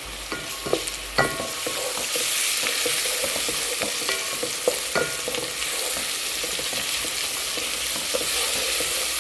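Ginger-garlic paste and browned onions sizzling in hot oil and ghee, stirred in the pan with a spoon that knocks and scrapes against it now and then. The sizzle grows louder about two seconds in.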